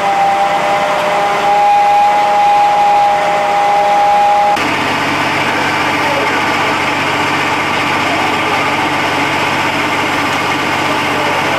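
Two steady high tones over background noise, then an abrupt change about four and a half seconds in to an engine running steadily with a dense rumble.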